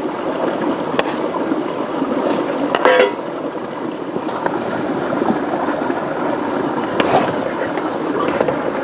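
Steady rush of rain and river water, with a thin steady high tone over it and a few short sharp clicks, at about one, three and seven seconds in.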